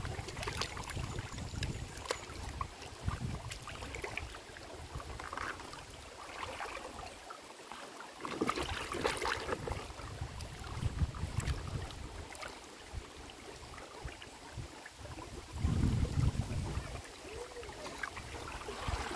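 River water splashing and sloshing, with gusts of wind rumbling on the microphone; a stronger splashy spell comes near the middle and a heavy wind gust a few seconds before the end.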